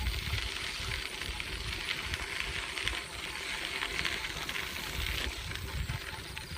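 Riding noise from a bicycle on a trail, a steady hiss with fine rattling, while wind buffets the microphone in uneven low rumbles.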